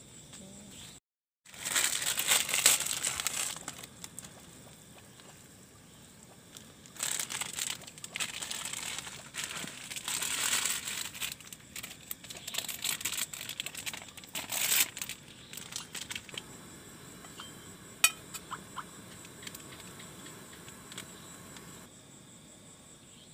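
Plastic food packets crinkling as they are handled, in several bursts, with a single sharp click near the end.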